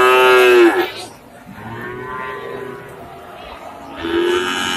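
Cattle mooing: a loud call at the very start, a fainter one about two seconds in, and another loud call near the end.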